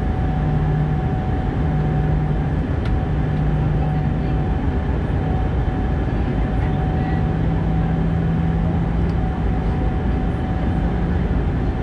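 Steady cabin noise of an Airbus A319 jet airliner in flight, heard from inside the cabin: an even rush of airflow and engine noise, with a low hum that fades in and out every second or two and a faint steady whine above it.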